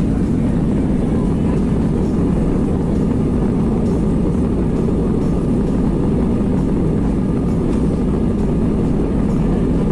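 Cabin noise of an Airbus A320neo during its takeoff roll on a wet runway: the jet engines at takeoff thrust and the rumble of the runway make a steady, loud, low noise. Takeoff decision speed (V1) is reached near the end.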